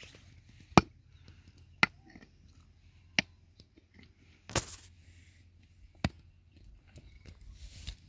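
A series of five sharp knocks or strikes, unevenly spaced about one to one and a half seconds apart; the first is the loudest and the fourth is a longer, rougher crack.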